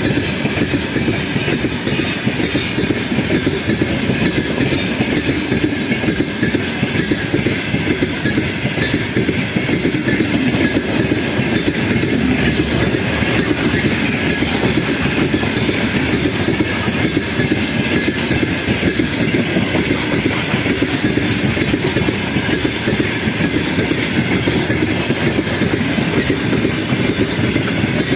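Open gondola wagons of a long freight train rolling past: a steady rumble and clatter of steel wheels on the rails.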